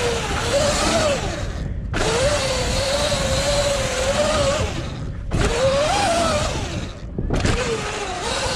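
Surron L1e electric dirt bike riding over dirt jumps: the electric motor whines, its pitch rising and falling with the throttle, over loud wind and tyre noise. The sound cuts out briefly three times, about two, five and seven seconds in.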